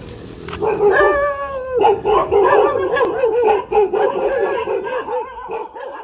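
A dog howling and yelping, frightened by a toy tiger pushed at it on a stick. One held howl comes about a second in, then a quick run of wavering yelps that fades near the end.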